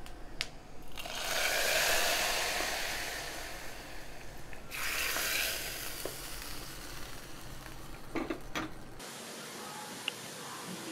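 Hot ghee with fried cashews and coconut pieces poured into a pot of lentil payasam, sizzling loudly for a few seconds as it hits, then a shorter second sizzle. A wooden spoon stirring, with a few light knocks against the pot near the end.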